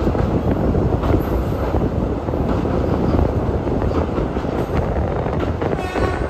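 Indian Railways passenger train running at speed, heard from on board: a steady rumble and rattle of wheels on the rails with faint clicks. A brief high tone sounds near the end.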